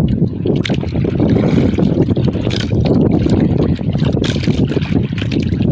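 Steady low rumble of wind and boat noise aboard a small outrigger boat on open sea, with wind buffeting the microphone.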